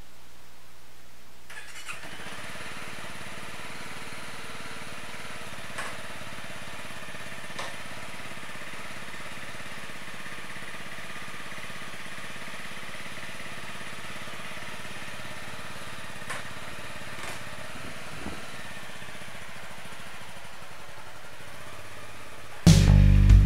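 Honda CRF 250 Rally's single-cylinder four-stroke engine starting up about two seconds in, then idling steadily, with a few faint clicks. Music comes in just before the end.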